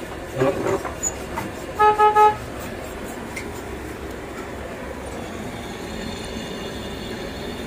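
A vehicle horn sounds three quick toots on one steady pitch about two seconds in, over the steady hum of street noise.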